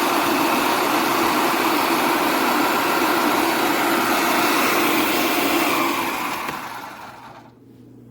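Small electric food chopper (TWOMEOW 4-cup food processor) motor running with a steady, loud whine and hum, then spinning down and fading out after about six seconds as it is switched off.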